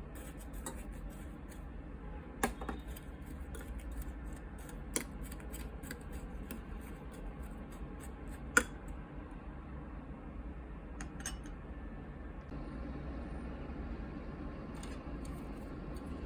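Kitchen utensils and dishes being handled: a few sharp clicks and knocks, three of them standing out, over a steady low hum.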